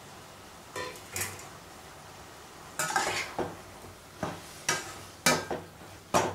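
Slotted metal spatula scraping and clanking against a stainless steel pot, stirring green beans through a thick tomato masala, in several irregular strokes that begin a little under a second in.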